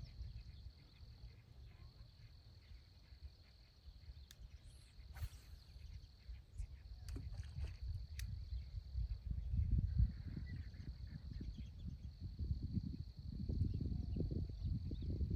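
Insects trilling steadily at a high pitch, broken by short gaps. Under it a low rumble on the microphone grows louder in the second half, and a few sharp ticks come in the middle.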